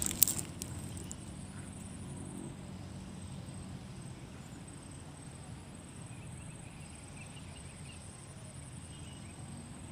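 Quiet rural outdoor ambience: a steady low hum with a faint high whine above it. A few sharp clicks come right at the start, and a few faint short chirps come later.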